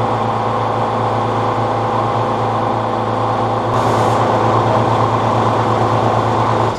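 Tuxing twin-cylinder high-pressure air compressor running steadily under load while filling a bottle near 4,300–4,400 psi, with a brief hiss about four seconds in after which it runs a little louder. It cuts off suddenly at the very end, consistent with the auto-stop reaching its pressure set point.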